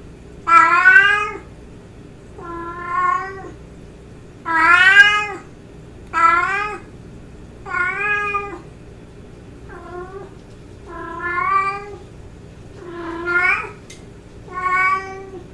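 A female domestic cat meowing over and over, nine drawn-out meows about a second and a half apart, each rising then falling in pitch. These are calling meows, put forward as a courtship call that draws other cats.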